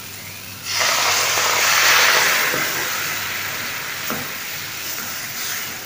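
Milk hitting a hot non-stick pan of ghee-roasted semolina and banana and sizzling: a sudden hiss about a second in that slowly dies down. A wooden spatula taps faintly as it stirs.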